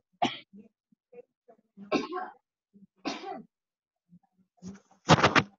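A person coughing: four short coughs spread through a few seconds, the last one the loudest, made of several quick strokes, near the end.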